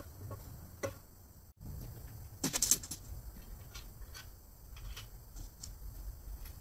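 Scattered light clicks and knocks, with a short cluster of louder ones about two and a half seconds in.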